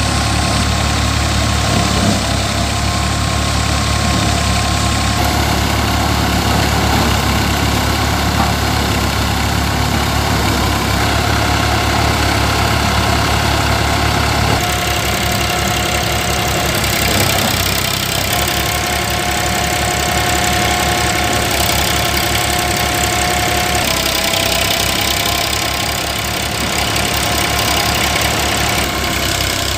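Massey Ferguson 5245 tractor's three-cylinder diesel engine running steadily under load, driving a Dashmesh paddy thresher through its PTO, with the thresher's spinning drum adding a steady whine over the engine's drone.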